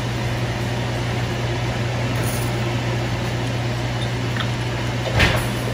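Ghee sizzling steadily in a stainless steel saucepan, tempering dried red chilies and panch phoron seeds, over a steady low hum. A single knock on the pan about five seconds in.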